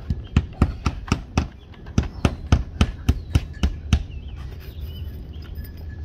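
Hammer driving a nail into vinyl siding on a wooden wall: a quick run of about six strikes, a short pause, then about eight more, roughly four a second.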